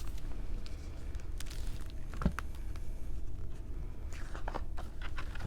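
Handling of a picture book: soft paper rustles and small clicks, with one sharper tap about two seconds in, over a steady low hum.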